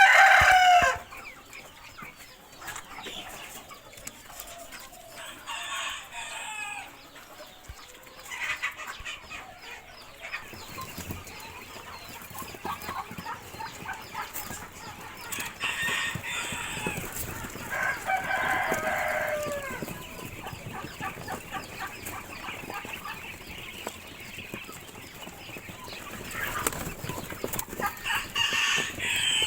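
Chickens clucking and calling in a flock, with separate loud calls at intervals, the loudest right at the start and a long falling call a little past halfway, over a steady background of flock chatter.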